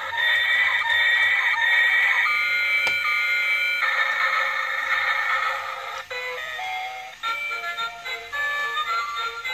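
Transforming robot-train toy playing its electronic melody through a small tinny speaker as it changes from train into robot. About six seconds in the tune turns into a string of short separate beeping notes.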